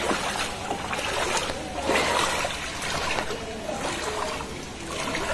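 Legs wading through floodwater on a street, with a water swish and splash at each step, coming roughly every half second to a second.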